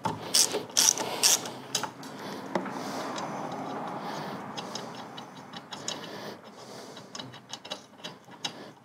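Ratchet with a 5/8-inch spark plug socket clicking as an old spark plug is unscrewed from a Honda GX690 V-twin engine. A few sharp clicks come at the start, then a steadier rasp, then quick runs of ratchet clicks near the end.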